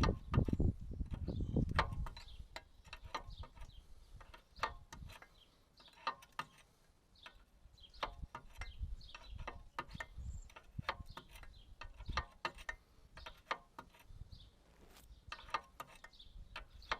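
A low rumble in the first two seconds, then a run of irregular metal clicks from a hand tool working the mini digger's track adjuster as it is slackened off to let grease out and release track tension.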